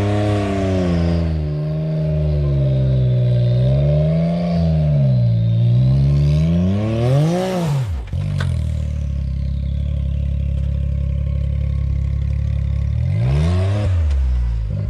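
Side-by-side UTV engine revving up and down as it works an off-road rock climb, climbing to a high rev about halfway through before dropping off suddenly, then running steady and revving again near the end. A single sharp knock comes just after the drop.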